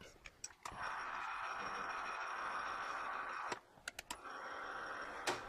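Small metal lathe running under power, driving a 1/4-20 bottoming tap into a blind hole in a nut. It stops suddenly about three and a half seconds in with a few clicks, then runs again more quietly.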